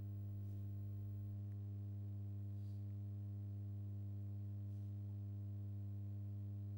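Steady low electrical hum with a stack of overtones above it, over quiet room tone.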